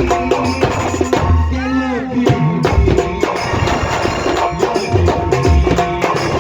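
Indian folk-style song music with a steady percussion beat; a wavering tone rises and falls briefly about a second and a half in.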